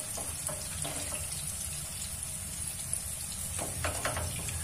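Peanut kababs shallow-frying in oil in a nonstick pan on a low flame: a steady, soft sizzle. A few light scrapes or taps of a wooden spatula in the pan come near the end.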